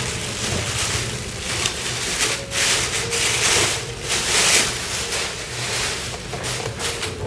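Clear plastic wrapping crinkling and rustling irregularly as a viscometer head is pulled out of its bag and unwrapped.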